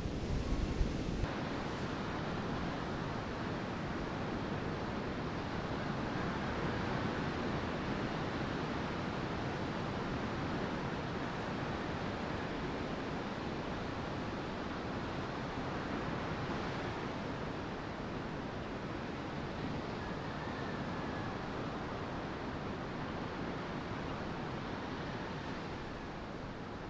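Steady beach ambience: sea surf and wind rushing on without a break, with a few low bumps in the first second.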